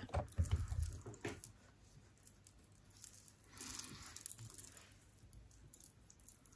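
Close handling noise: a cluster of soft thumps and taps in the first second or so, then a short rustling hiss about three and a half seconds in, as fingers pat and rub skincare into the face and neck.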